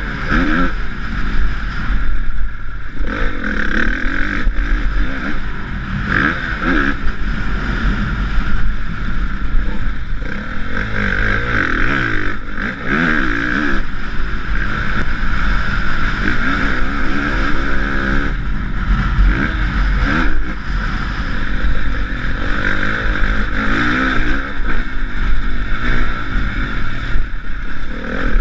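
Honda CRF450 four-stroke single-cylinder motocross bike engine revving up and down repeatedly as it is ridden hard through a lap, heard from a helmet-mounted camera.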